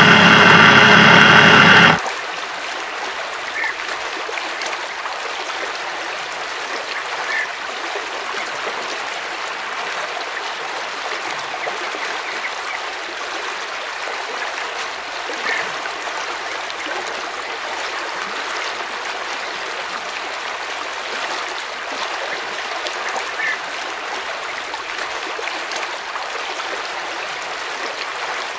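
River water rushing steadily over shallow rapids, with a few faint short chirps now and then. In the first two seconds a loud, steady pitched hum plays over it and then cuts off abruptly.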